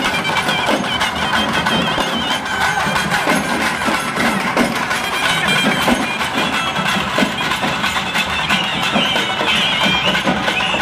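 Live traditional street band: drums beating a steady rhythm under a reed or horn instrument playing a wavering high melody.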